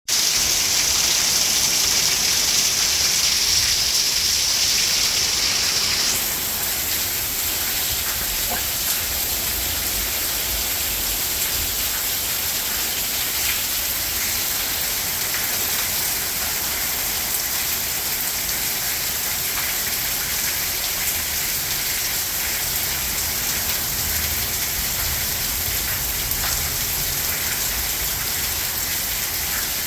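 Steady rain falling, an even hiss with scattered single drop ticks. The hiss is slightly louder and brighter for the first six seconds, then settles a little lower.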